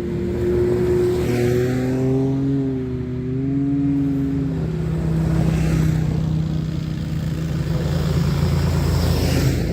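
Side-by-side UTV engine running steadily at cruising speed, likely the CFMOTO ZForce 950 HO EX being ridden, with a whine that bends gently up and down in the first half over a steady rush of noise.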